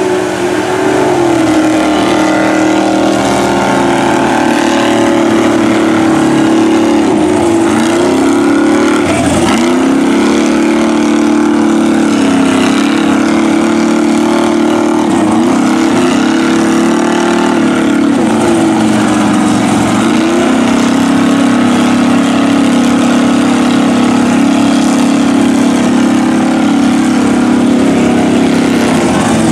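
Engines of two mud-bog trucks running hard at high revs, the pitch dipping and climbing again several times as the drivers work the throttle with their big lugged tires spinning in deep mud.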